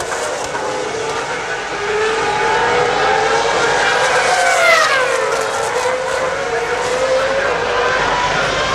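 Several 2007 Formula One cars' 2.4-litre V8 engines running at high revs, overlapping one another. Their pitch slides down and climbs back up through the gear changes, with a marked drop about five seconds in.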